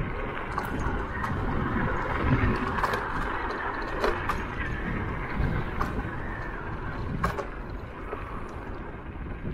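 Riding noise of a Zero 10X electric scooter on cracked asphalt: a steady rumble of tyres and wind on the microphone, with a few sharp clicks from bumps along the way.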